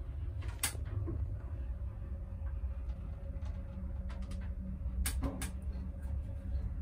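Old one-speed traction elevator heard from inside the car: a steady low rumble with a faint hum, a sharp click about half a second in, and a quick run of clicks about five seconds in.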